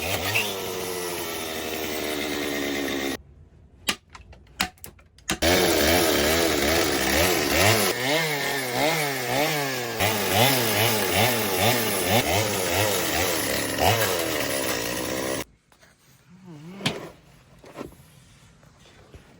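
Chainsaw running and cutting wood, its engine pitch rising and falling again and again as it is throttled and loaded through the cuts. It drops out about three seconds in, leaving a couple of seconds of faint clicks before it starts cutting again. It falls quiet again with about four seconds left.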